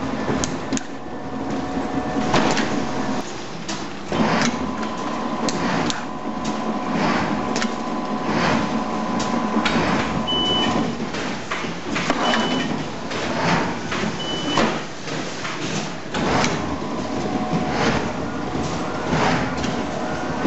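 Fotopoulos seedling-tray transplanter running: a steady machine hum from the conveyor drive with irregular clacks and knocks of the mechanism. Three short high beeps, about two seconds apart, sound near the middle.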